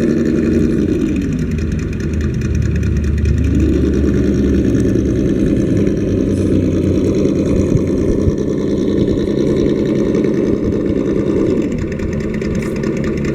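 Simulated V8 engine sound from a miniature 1955 Ford's sound unit. The revs drop about a second in, climb back around three seconds in, hold steady, and fall again near the end.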